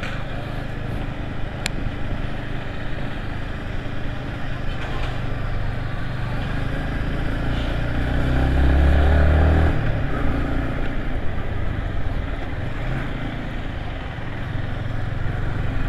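Yamaha MT-15 V2's 155 cc single-cylinder engine running steadily as the motorcycle rides along. A louder, deeper swell comes a little past halfway and fades again.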